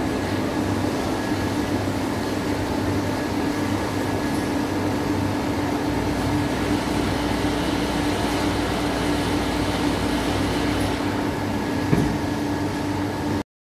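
Tub-tilting device of an industrial spiral mixer running with a steady mechanical hum as it lowers the stainless steel tub back to upright. The hum deepens about halfway through, and a single knock near the end marks the tub coming to rest; the sound then cuts off abruptly.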